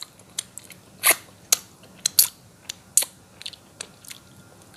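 Close-up eating sounds of someone eating fish-head curry with his fingers: an irregular string of sharp, wet mouth smacks and clicks from chewing and licking his fingers.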